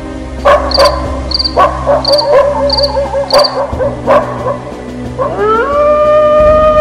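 Dogs barking and yelping in short sharp bursts, then a dog howling long and steady from about five seconds in. Crickets chirp in short trills over a low music drone.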